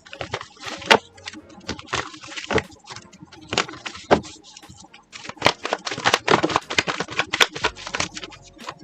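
Tarot cards being shuffled and handled, a rapid, irregular run of card clicks and flicks.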